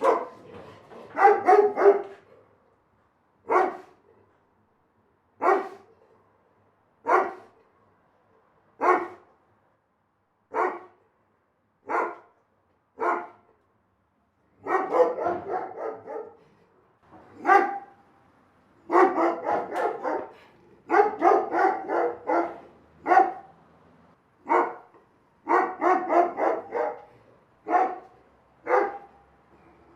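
A big dog barking: single barks every second or two, with several runs of quick barks in close succession.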